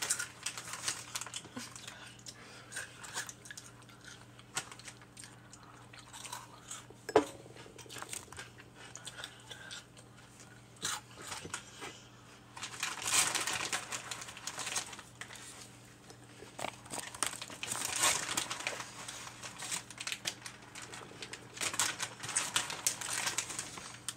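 Plastic wrapping crinkling and rustling as it is handled, in irregular bursts, with a sharp knock about seven seconds in.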